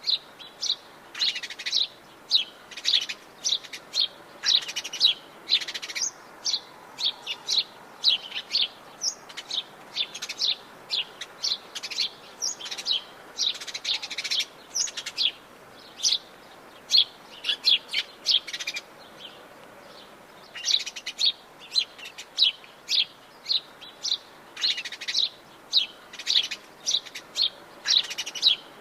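Several songbirds chirping and singing, a dense run of short, sharp, high notes with a brief lull about two-thirds of the way through.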